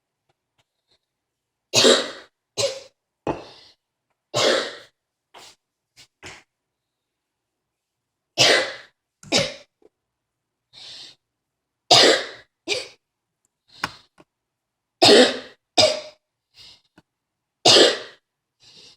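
A person coughing over and over in a coughing fit: about fifteen coughs in clusters of two or three with short pauses between, starting about two seconds in.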